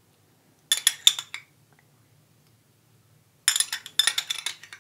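Cutlery clinking and scraping against a dish in two short clusters of quick sharp strokes, about a second in and again over the last second and a half.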